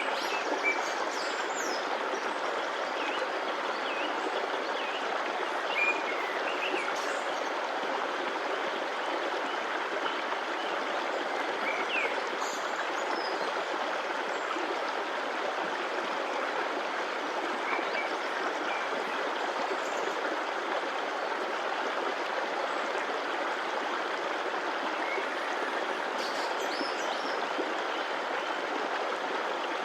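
A stream of flowing water running steadily, with a few faint, short high chirps now and then.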